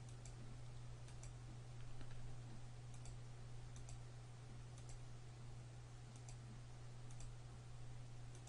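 Faint computer-mouse clicks: the left button pressed several times in an uneven series, over a steady low hum.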